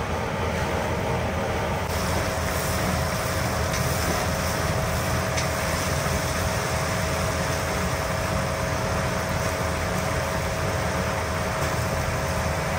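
Steady mechanical noise: an even rush with a constant hum running underneath, unchanging throughout.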